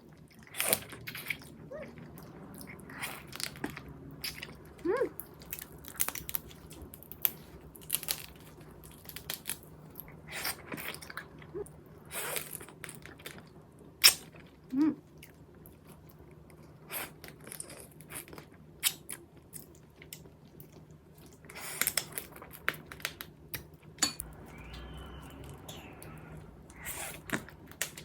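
Close-miked eating of soy-sauce-marinated raw crab with rice: wet chewing, biting and repeated crunches.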